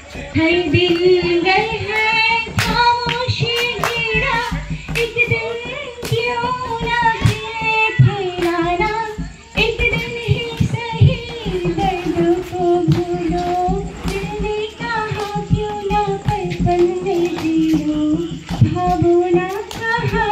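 A live voice singing a melodic song without instruments, with sharp claps from people clapping along.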